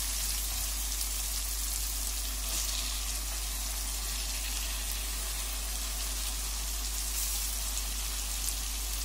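Onion and tomato masala sizzling steadily in hot oil in a pan on the stove.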